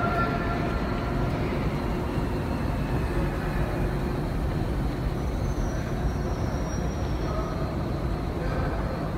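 Steady background noise of an underground metro station, with faint tones coming and going.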